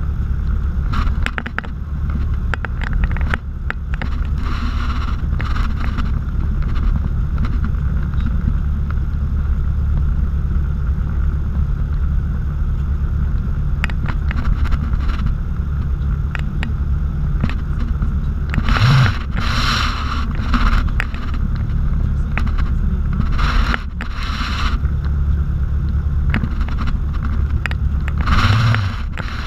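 Light aircraft's piston engine running steadily, heard inside the cockpit as a constant low drone, with several short hissy bursts in the second half.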